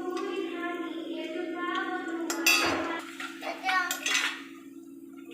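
Metal kitchen utensils and dishes clattering: a loud clank about halfway through, then a few lighter knocks, over a steady low hum. A voice is singing during the first half.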